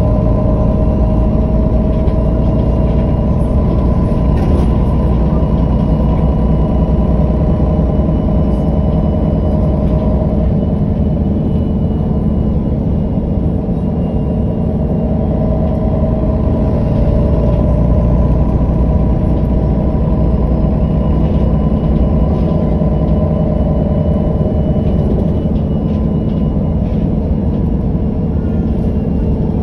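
MAN NG313 articulated city bus's diesel engine running steadily, with a steady whining tone over the engine note.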